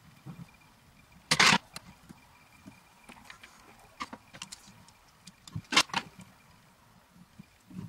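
Light clicks and two louder metallic clatters, about a second and a half in and near six seconds in, from metal fly-tying tools being handled at the vise.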